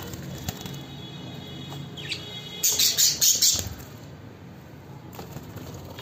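Budgies flapping their wings in a wire-mesh cage, with a loud flurry of quick wingbeats about two and a half seconds in that lasts about a second.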